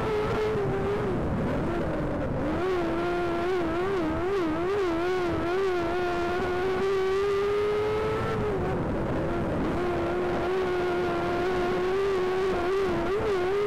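A race car's engine running hard at high revs. Its pitch dips twice, about a second and a half in and again just after eight seconds, and wavers quickly in between as the throttle is worked.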